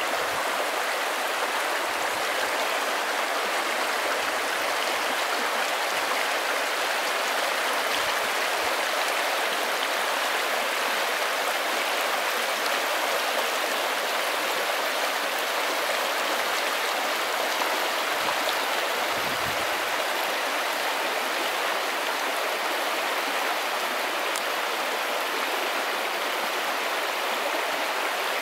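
Shallow, fast stream rushing over rocks and stones: a steady, even rush of running water.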